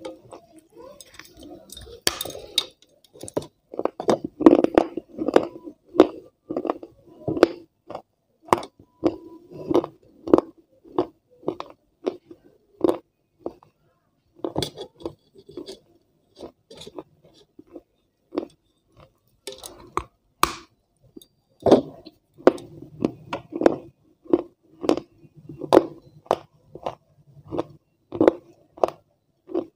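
Close-miked eating: crisp fried puri shells crunching and being chewed, with wet mouth sounds and irregular sharp clicks, some of them light clinks against a steel plate.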